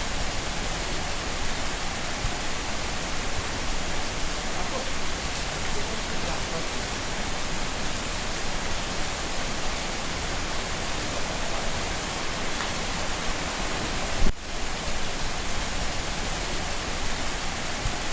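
Steady rain falling, an even hiss across all pitches, with one brief sharp knock about fourteen seconds in.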